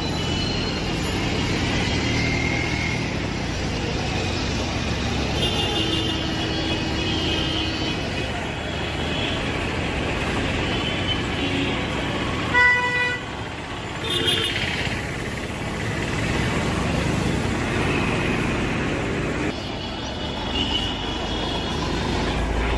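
Busy city street traffic: engines running and vehicles passing, with frequent short horn toots. One loud horn blast comes about halfway through.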